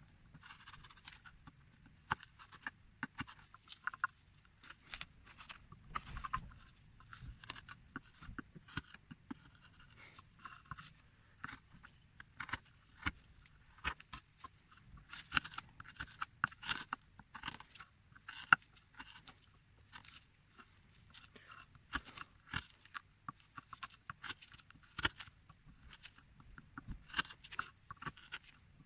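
Carving tool scraping and cutting a small hand-carved beckoning-cat figure in many short, irregular strokes.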